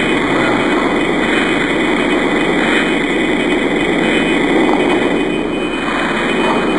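Space sound audio: a steady, dense rushing drone with a few thin, high, steady tones over it, without a break or change.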